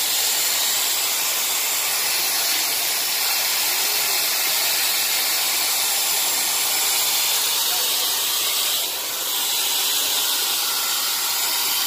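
A steady, high-pitched hiss, even throughout, dipping briefly about nine seconds in.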